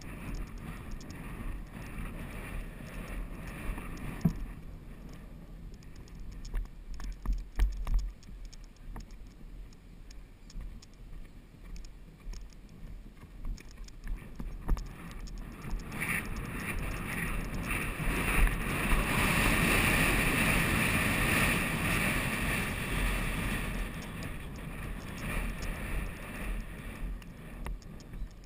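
Wind buffeting the microphone of an action camera on a rider at polo, with scattered knocks and rattles of a polo pony's hooves and tack as it canters. The rushing swells louder about halfway through as the horse picks up speed, then eases near the end.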